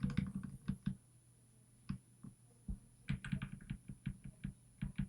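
Irregular light clicks and taps of small metal lock parts being handled on a work surface, in two clusters with a quieter gap in the middle.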